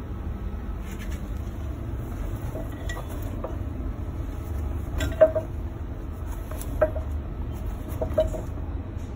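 A burning backpack being grabbed and lifted off its mat: a few sharp, lightly ringing clinks, the loudest about halfway through and two more near the end, over a steady low rumble.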